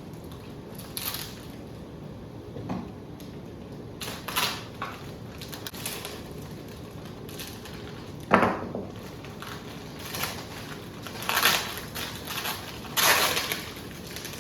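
Packaging being handled while parts are unpacked from a box, with intermittent crinkling and rustling. One sharp knock comes a little past the middle.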